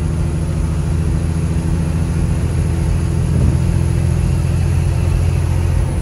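A Peterbilt semi truck's diesel engine running steadily at highway speed, heard from inside the cab as a low, even drone over road noise.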